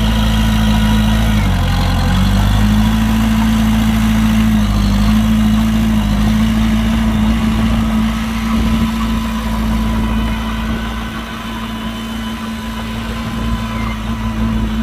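Heavy diesel engine of earthmoving equipment running steadily, its pitch dipping briefly about two seconds in before recovering, and a little quieter in the second half.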